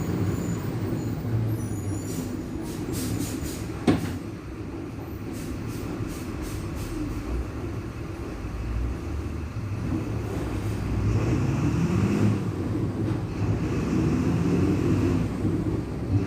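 VolksBus 17-230 EOD city bus under way, its MWM 6.12 TCE turbo-intercooled diesel running, with a drone that rises in pitch about eleven seconds in. The rear differential is growling loudly. A single sharp knock comes about four seconds in.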